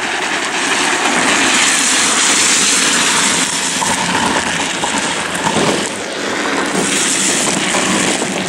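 Drift trike's hard plastic rear wheels sliding sideways on asphalt, a steady rough scraping rush.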